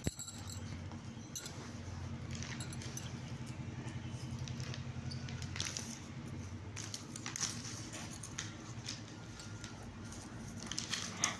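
A kitten playing with a tailor's measuring tape on a hard floor: faint, scattered scratches, taps and rustles of paws and claws and the flapping tape, over a steady low hum.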